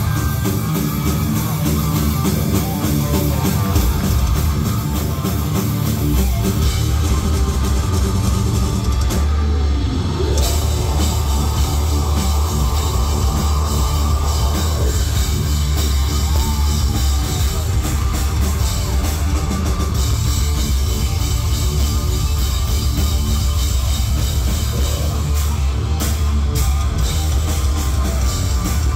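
Heavy metal band playing live and loud: distorted electric guitars over a drum kit.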